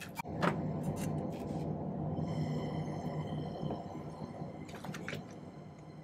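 Small jeweller's gas torch burning with a steady hissing flame, heating fluxed bezels so the solder beneath them melts and flows up into the seam. A few sharp clicks and taps from tools being handled, mostly in the first second and a half and again near the end.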